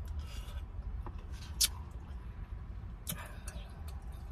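Someone chewing a mouthful of ramen noodles close to the microphone, with a few short wet smacks and clicks, one about a second and a half in and a cluster around three seconds in, over a steady low hum.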